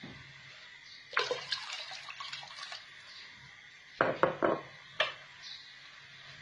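Hot water poured into a pressure-cooker pot of meat in tomato sauce, splashing for about two seconds, followed by a few sharp clinks.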